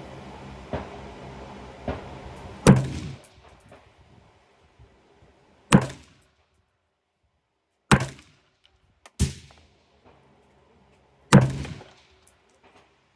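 Smith & Wesson M&P15 Sport II AR-15 rifle fired five single shots, one to three seconds apart. Each is a sharp crack with a short echoing tail. Two fainter knocks come before the first shot.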